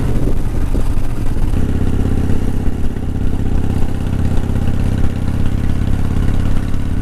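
Harley-Davidson Softail's Evolution V-twin engine running under way. Its note changes in the first second and a half, then settles into a steady cruise.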